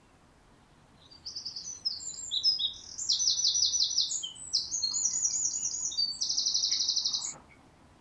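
Eurasian wren singing one song of about six seconds, starting about a second in: a rush of rapid high notes and trills, ending on a fast trill.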